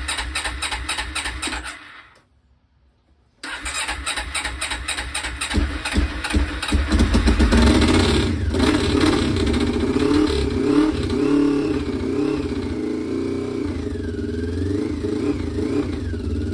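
1996 Honda CB500 parallel-twin engine cranked on the electric starter, stopping briefly and then cranking again. It catches about six seconds in and runs with blips of the throttle before settling to a steadier run. The owner says it is running on only one of its two cylinders.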